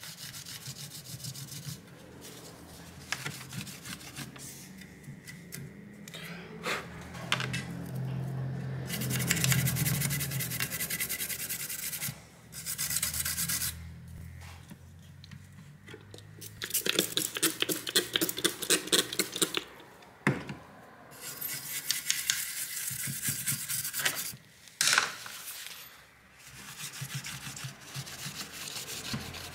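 A cloth or tissue rubbing over a graphics card's circuit board and GPU die in repeated back-and-forth wiping strokes, cleaning off old thermal paste. There is a single sharp knock near the end.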